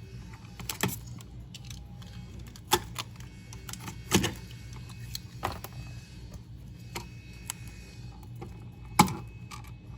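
Scattered sharp clicks and clacks of small plastic and metal hardware being handled: receptacle spacers and outlet mounting screws being fitted to a receptacle, with the loudest clack about nine seconds in, over a steady low hum.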